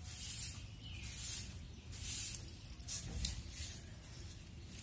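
Soft grass broom (jhadu) swishing in repeated strokes across a smooth cement floor, about one stroke a second.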